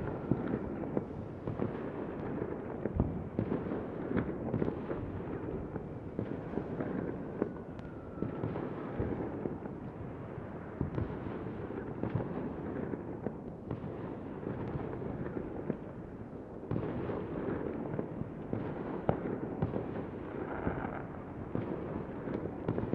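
Battle ambience: dense distant gunfire crackling without a break, with heavier blasts of distant explosions scattered through it.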